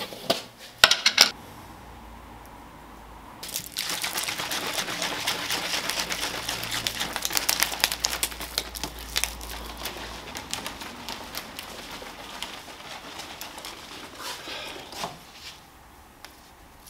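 A few sharp clicks and knocks from handling the pre-workout powder tub and bottle, then a plastic bottle of water and pre-workout powder shaken hard for about eleven seconds: a dense, rapid sloshing rattle that fades toward the end.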